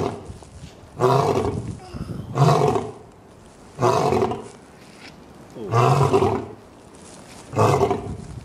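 Lions feeding on a carcass give a series of about five short, deep calls, each under a second long and spaced roughly every one and a half to two seconds.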